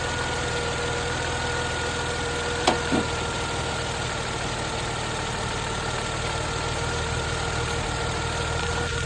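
Chrysler Crossfire V6 idling steadily while it runs on fuel fed in by hand, since the fuel in its tank is about half water. A steady whine sits over the engine note, and two short clicks come about three seconds in.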